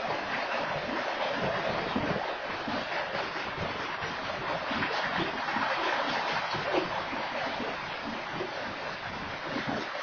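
Freight train cars rolling past: a steady rushing rumble of steel wheels on the rails with scattered faint clanks, heard through an outdoor security camera's microphone.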